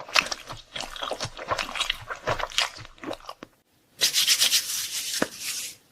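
Close-miked eating sounds: irregular crisp crunching and crackling for about three and a half seconds, then, after a short pause, about two seconds of dense rustling.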